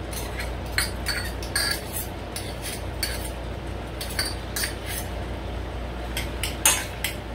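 A metal knife clinking and scraping against a small stainless measuring cup and a stainless steel saucepan: irregular sharp clicks and scrapes as diced garlic is knocked out of the cup and stirred into the butter sauce.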